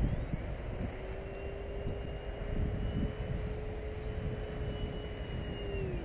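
Electric motor and propeller of an FMS Sbach 342 RC plane flying overhead: a steady whine that settles in about a second in and drops in pitch near the end. Gusts of wind buffet the microphone underneath.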